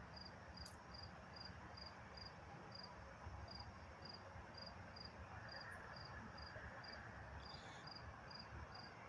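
A cricket chirping faintly in a steady, even rhythm of short high chirps, about three a second.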